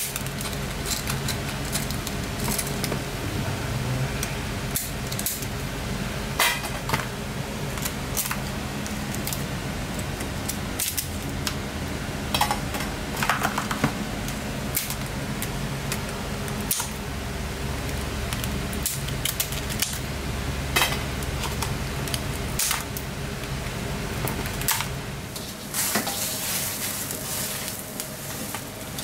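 Knife cutting through raw swimming-crab shells, with scattered sharp clicks and cracks as pieces are cut and dropped into a plastic tray, over a steady kitchen hum. A hiss comes in near the end.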